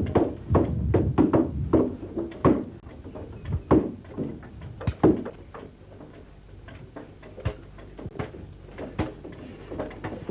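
Wood being chopped and struck with hand tools: irregular hollow knocks on hardwood timber, a quick run in the first few seconds, then single strokes spaced a second or so apart.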